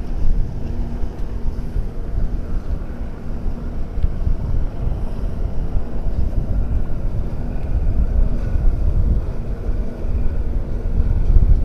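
Wind buffeting the microphone in a low rumble, over the faint steady hum of an Evinrude outboard motor driving a small fishing boat past at cruising speed.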